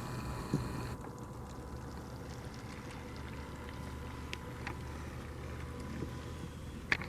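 Remote-control boat's motor running steadily as the boat trolls a fishing line, a low hum with a thin whine over it, and a few faint clicks, the sharpest near the end.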